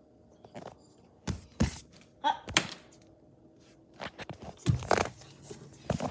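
Several irregular thumps and knocks in short clusters, with handling and movement noise.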